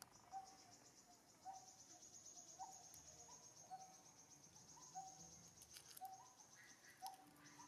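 Faint insect trilling, a steady high buzz that runs without a break, with a short low call repeated about once a second.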